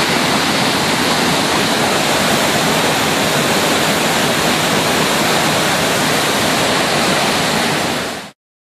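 Muddy flash-flood water rushing down a wash and pouring over a drop, a loud, steady rush of water at high flow that cuts off shortly before the end.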